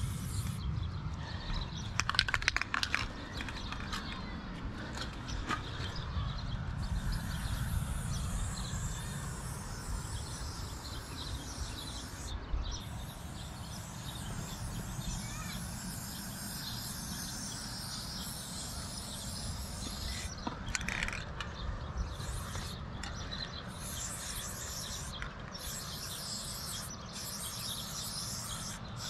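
Aerosol spray-paint can hissing in long bursts that cut off and start again, over a steady low rumble. A short run of clicks comes about two seconds in.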